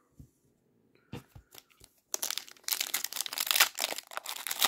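A foil trading card pack being torn open, its wrapper crinkling in quick dense crackles that start about two seconds in, after a few faint taps.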